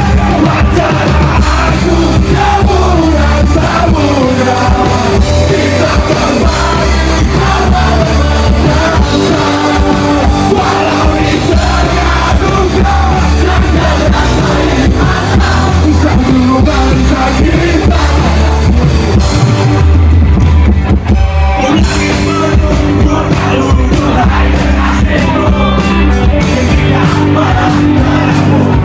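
Live punk rock band playing loudly, with sung vocals over heavy bass and drums. About two-thirds of the way through the band stops for a moment, then comes back in.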